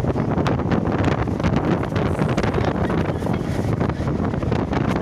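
Wind buffeting the microphone inside a moving car with its side window open, over steady road and engine noise.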